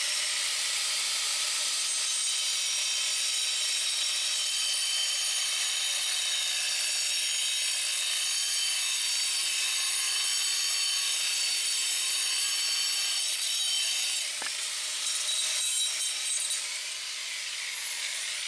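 Handheld angle grinder with a masonry cutting blade cutting a natural stone ledger panel, its motor a steady high whine. About fourteen seconds in the note wavers as the blade works through the stone. Near the end the grinder is switched off and winds down, falling in pitch.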